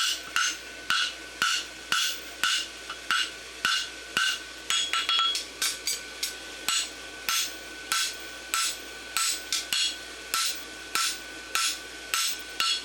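Farrier's hand hammer striking hot steel bar on an anvil while forging a horseshoe, about two blows a second with a metallic ring after each. There is a quick run of lighter taps about five seconds in.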